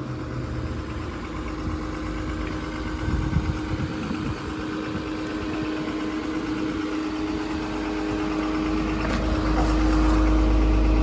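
Komatsu PC210LC-11 crawler excavator's 123 kW diesel engine idling steadily, with no unwanted noises. It grows louder near the end.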